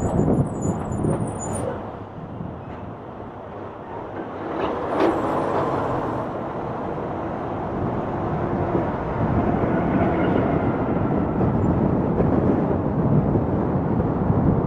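Road and traffic noise from a car driving on a city street, with a short sharp hiss about five seconds in.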